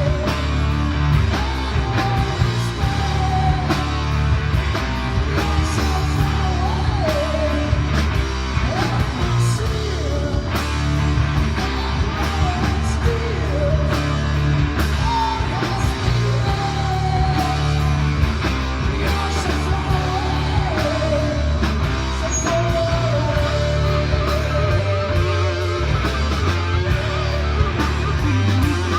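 Rock music played at a steady, loud level: heavy bass, guitar and drums, with a wavering, sliding lead melody above them.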